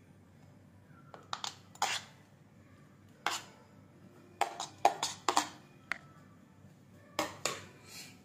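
Metal spoon knocking and scraping against a plate and a glass baking dish as rice is spooned out: about ten sharp clinks in small groups, each with a short ring.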